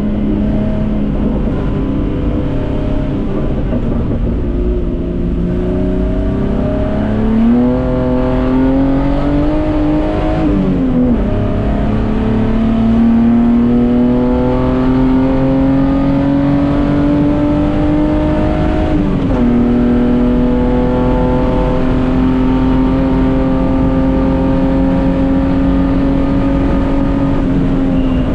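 Datsun 240K race car's straight-six engine under load, its pitch climbing slowly, falling sharply twice (about ten and nineteen seconds in) as the revs drop, then holding steady.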